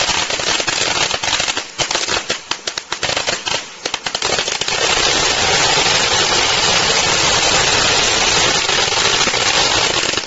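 Red Devil ground fountain firework, a V-shaped silver crackling fountain, spraying with a loud hiss and dense crackling. A rapid run of sharp pops comes in the first four seconds, then the crackle evens out into a steady dense sputter that stops abruptly near the end.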